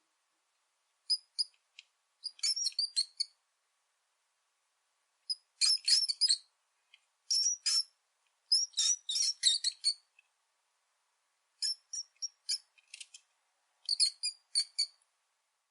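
Rat squeaking: clusters of short, high-pitched squeaks in quick runs, with silent gaps of one to two seconds between the clusters.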